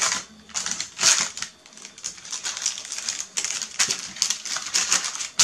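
A long knife sawing back and forth through the crust of a baked sponge cake to split it through the middle into layers: a rapid, irregular run of dry, scratchy rasps, with the baking paper beneath crinkling.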